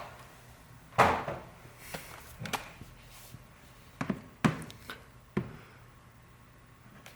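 Knocks and clunks of a laptop being handled and set down on a bench: one louder knock about a second in, then four smaller ones.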